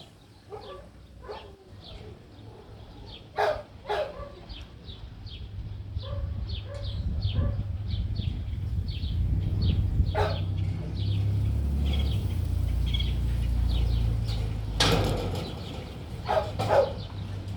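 A dog barking in short, separate barks, a few in quick succession near the start and again near the end, over a low rumbling noise that builds up in the middle.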